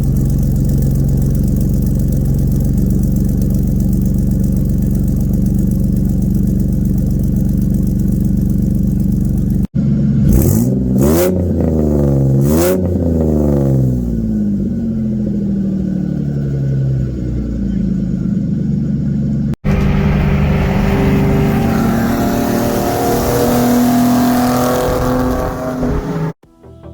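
2004 Ford Mustang V6 through a custom stainless exhaust: first a steady drone, then about ten seconds in a few quick revs that rise and fall before settling back to idle, then a hard acceleration. Music starts at the very end.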